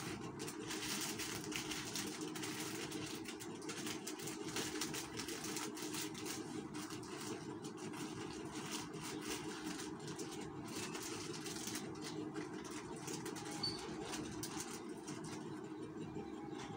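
Hanging strips of plastic sachets rustling and crinkling as they are handled and wiped, over a steady low mechanical hum. The crinkling thins out near the end.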